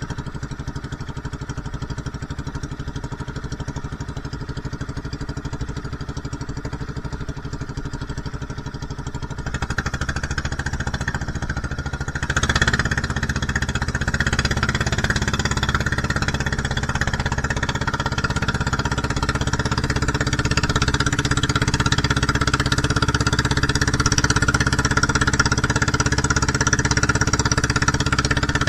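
Engine of an outrigger fishing boat (bangka) running steadily under way. It gets louder about ten seconds in and again a couple of seconds later.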